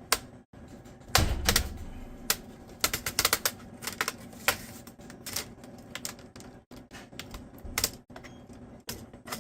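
Plastic snap clips of a laptop screen bezel clicking and popping as the bezel is pried off. It is an irregular run of sharp clicks, with a heavier knock about a second in.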